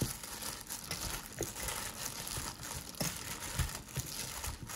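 Disposable plastic glove crinkling and cut chives and cucumber rustling as they are tossed by hand in a stainless steel bowl, coating them with red pepper flakes. There are a few soft thumps throughout.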